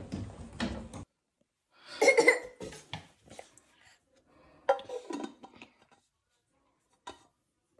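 A few short cough-like vocal sounds, about two and about five seconds in, with small knocks and clicks before them and gaps of dead silence between.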